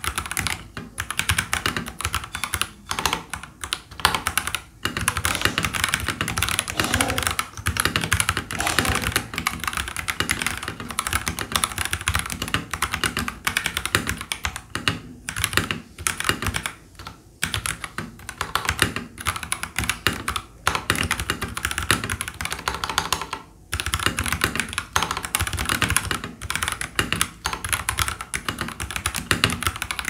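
Fast continuous typing on an FL-Esports FL980 CP mechanical keyboard fitted with stock Kailh Box Red linear switches: a dense run of key presses with a few brief pauses.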